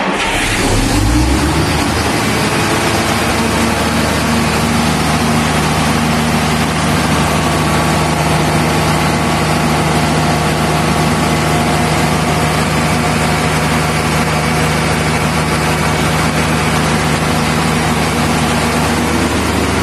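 MAN diesel engine of a 350 kVA generator set, just started, running up to speed over the first second or so and then running steadily at constant speed on a test run after repair work.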